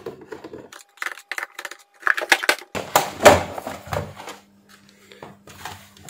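Clicks and knocks of plastic being handled as the last screw comes out and the white plastic casing of a wall-mounted electric fan heater is lifted off, with the loudest clatter about three seconds in.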